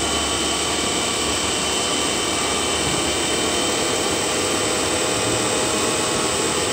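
Lab DC machine (rated 220 V, 1600 rpm) with a load attached, running steadily on a buck converter's output: a constant whirring hum with a few faint steady high tones over it.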